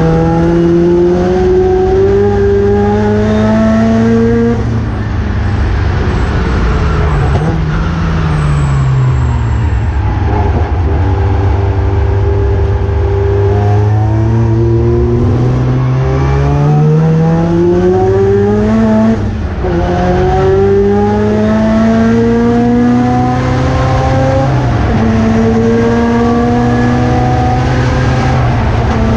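1979 Mazda RX-7 race car's engine at racing speed, revs climbing repeatedly and dropping sharply at each gear change, with a long fall in revs about a third of the way in as the car slows, then climbing again.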